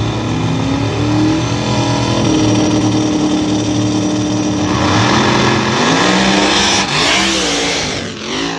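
Drag race car engines at the starting line, held loud at a steady high pitch, then revving up in rising sweeps over the last few seconds as a car launches and accelerates.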